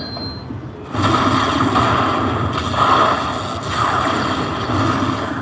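Lightning Link Tiki Fire slot machine playing its crackling lightning and thunder sound effects while the win meter counts up at the end of a bonus round. The sound jumps up suddenly about a second in and then swells and falls several times.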